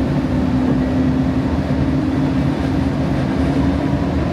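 Siemens S700 light-rail car heard from inside while running along the track: a steady rumble of wheels on rail with a low steady hum that fades about three seconds in.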